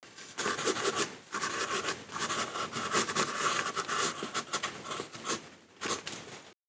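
Writing on paper: a pen or pencil tip scratching across the sheet in quick strokes, pausing briefly about a second in and again near the end.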